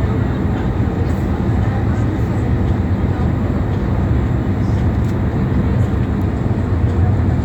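Boat engine running with a steady low rumble and a constant wash of noise over it.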